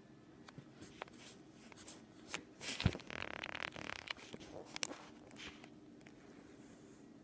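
An old desktop PC making weird noises: irregular sharp clicks and a scratchy, rasping burst over a faint steady hum. The rasping is densest between about two and five seconds in, with one loud click near three seconds.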